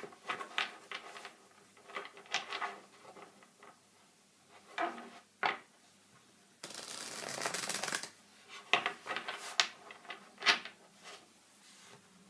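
A deck of tarot cards being shuffled and handled: scattered short flicks and taps, with a longer continuous shuffling rush about seven seconds in.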